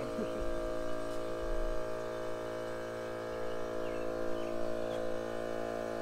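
A steady hum made of several evenly spaced tones, holding level without a break.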